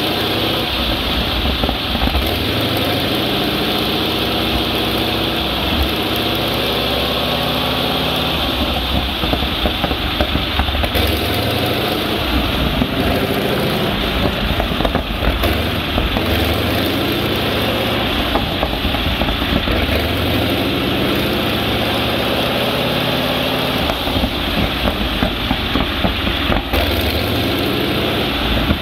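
Continental R975 C1 nine-cylinder radial engine running on a test stand, its pitch rising and falling several times as it is throttled up and back down.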